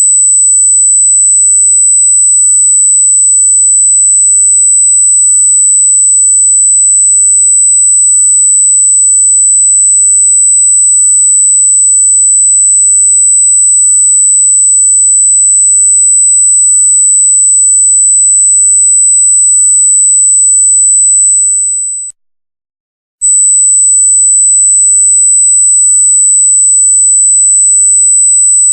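A loud, steady, very high-pitched electronic tone, a single pure pitch. It cuts out for about a second roughly three-quarters of the way through, then resumes unchanged.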